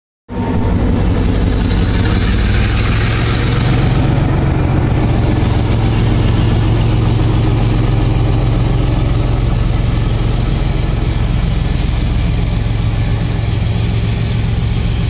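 Diesel locomotive engine running steadily with a loud, low drone. A brief high-pitched squeak comes about twelve seconds in.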